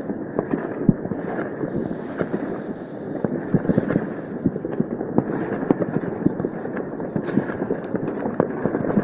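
New Year's fireworks and firecrackers going off in many places at once: a dense, continuous crackle of overlapping bangs and pops with no let-up.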